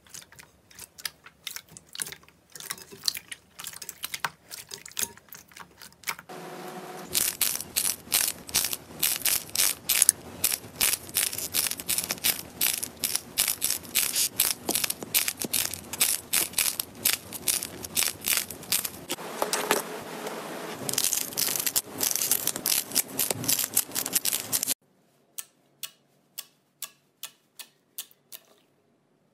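Hands poking, squeezing and pressing slime. Soft wet clicks come first. About six seconds in, a long stretch of dense, loud crackling and popping begins. Near the end it gives way to single quiet pops about twice a second as the slime is pressed.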